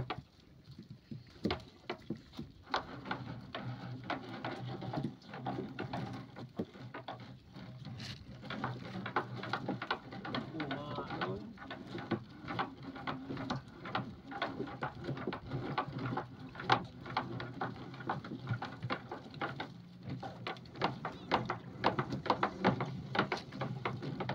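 Gill net full of mullet being hauled by hand into a small boat: many irregular knocks and slaps as floats, wet mesh and fish hit the hull and deck, over a low steady hum.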